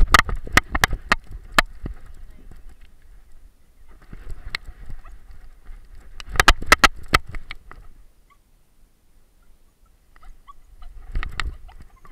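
A camera harness on a running dog knocking and rattling in sharp clusters, with rustling from long grass. The knocking goes quiet for a couple of seconds about two-thirds of the way through.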